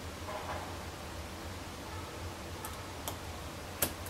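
Light handling rustle and a few small clicks, the sharpest near the end, as small screws are driven with a small screwdriver into the mounting bracket of a laptop LCD panel.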